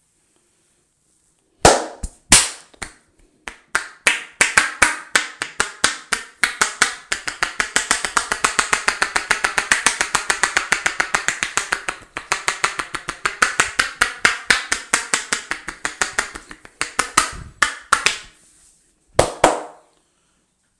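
A barber's hands striking rapidly in a percussive head massage, each blow a sharp clap: two single claps, then a long fast run of several claps a second, ending with a pair of claps.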